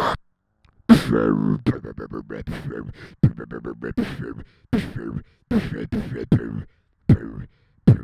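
Solo beatboxing into a handheld microphone: kick, snare and bass sounds made with the mouth. After a short silence about half a second in comes a hard hit with a held, pitched bass note, then a steady beat of kicks and snares with brief breaks.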